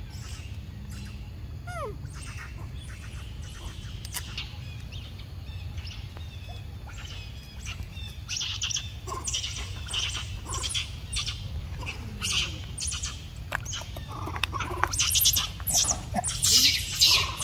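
Birds chirping in short, quick calls that get busier and louder in the second half, over a steady low rumble.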